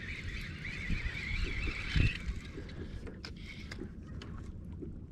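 Water slapping and thumping against a small fishing boat's hull as it rocks. Over it, a wavering high whine runs for the first two seconds and then stops, followed by a few light clicks.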